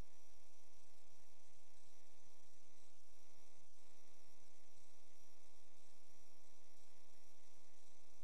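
Steady electrical mains hum with static hiss and a faint high whine, picked up by the drain inspection camera's recording system; no drain sound stands out above it.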